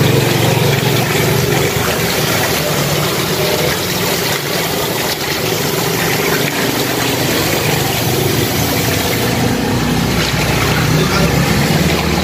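Tap water running steadily into a plastic basin of leafy greens as hands swish and rinse them, with a steady low rumble under the splashing.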